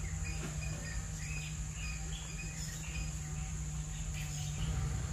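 Outdoor background of insects keeping up a steady high-pitched drone, with short bird chirps repeating at intervals, over a low steady hum.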